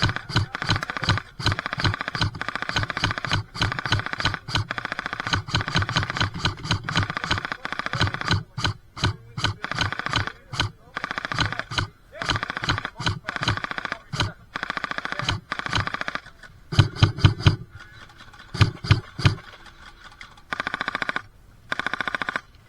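Airsoft electric guns firing in repeated full-auto bursts, rapid clicking over a steady gearbox whine. The bursts thin out into shorter, spaced volleys in the last few seconds.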